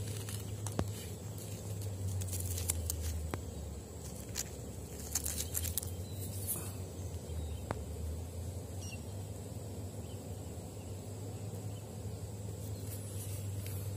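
Scattered small clicks and knocks of river pebbles being picked through by hand, over a steady low rumble.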